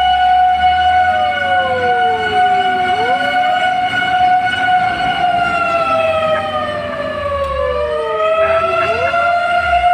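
Fire engine sirens sounding together. One holds a steady high tone, while another falls in pitch over about two seconds and then swoops back up; it does this twice. A low rumble runs underneath.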